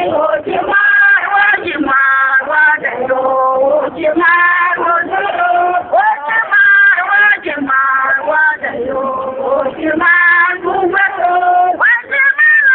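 A woman singing through a handheld megaphone, in sustained phrases with short breaks between them.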